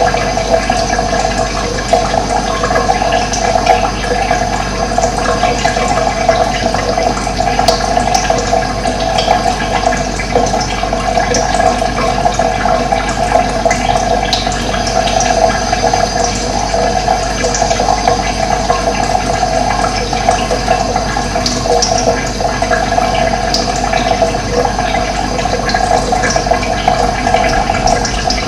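Running water flowing steadily and loudly, an unbroken rush of noise.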